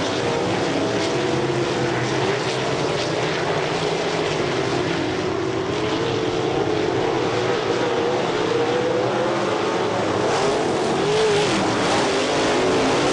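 A pack of wingless sprint cars racing, several engines running at once, with their pitch rising and falling as the cars go through the turns.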